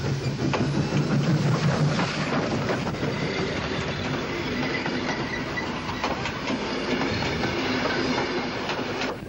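Victorian Railways K-class steam locomotive K160 passes close by with a low rumble, then its carriages roll past, wheels clicking over the rail joints, with a thin high squeal from the wheels midway.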